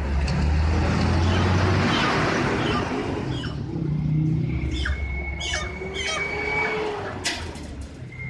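Chickens squawking in a string of short, sharp calls through the second half, over a low rumble in the background.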